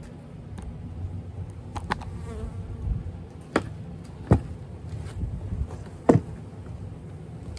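Honeybees buzzing around an opened hive, with several sharp knocks from a steel hive tool working the wooden hive boxes, the loudest about four and six seconds in.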